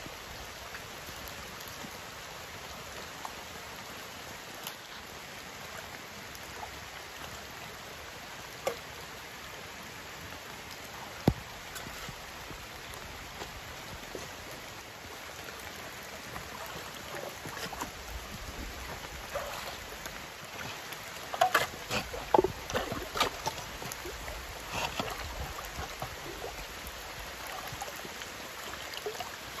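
Shallow stream trickling, with splashing and knocks of a shovel digging into the wet, stony stream bed, busiest in the second half.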